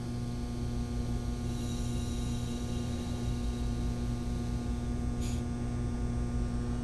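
Steady electrical hum. A faint high hiss comes in for a couple of seconds, and a single short click follows about five seconds in, as an air-hose coupling is worked onto the cylinder's water-jacket test fitting.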